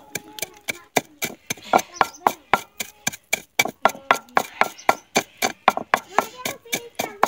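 A wooden pestle pounding whole coriander seeds in a mortar: an even run of knocks, about three to four strikes a second.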